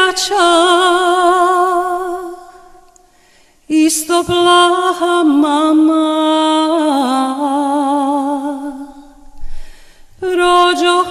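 Music: a solo singing voice, mostly unaccompanied, holding long notes with a wavering vibrato and small ornamental bends, in phrases broken by short pauses.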